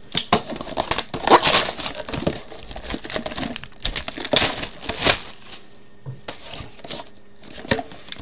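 Plastic shrink wrap being torn and crinkled off a tightly sealed box of Upper Deck Premier hockey cards, in irregular rustling bursts that ease off after about six seconds.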